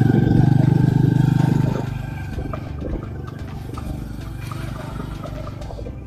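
Motor scooter engine running on the move, with fast even firing pulses and a steady whine. It is loud for the first two seconds, then eases off and runs quieter.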